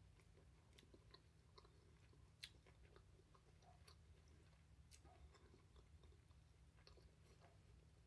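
Faint close-up chewing of lobster meat, with small wet mouth clicks scattered through and one sharper click about two and a half seconds in.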